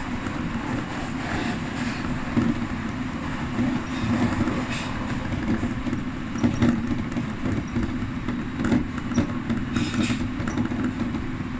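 Electric train running along the line, heard from inside the front of the car: a steady rumble of wheels on rails with a low hum and a few scattered sharp clicks.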